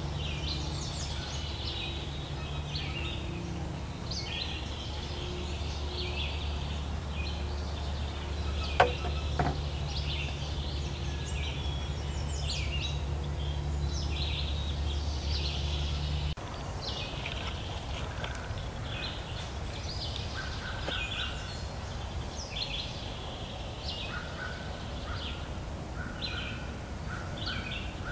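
Wild turkey calling amid a chorus of songbirds chirping in spring woodland. Two sharp clicks half a second apart come about nine seconds in. A low steady hum stops about sixteen seconds in.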